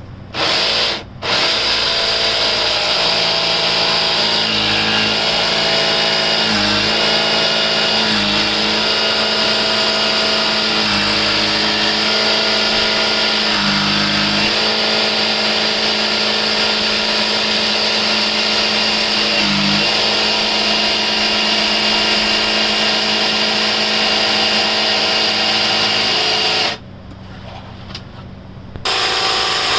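Handheld power tool cutting the opening in the boat's pantry cabinet. The motor runs steadily with its pitch sagging briefly several times as the blade bites. It stops after a short first burst, runs for about 25 seconds, stops near the end, then starts again.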